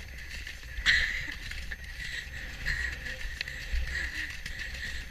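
Horse galloping over grass, its tack creaking and rattling in a rough rhythm with the strides, over a low rumble of wind on the microphone.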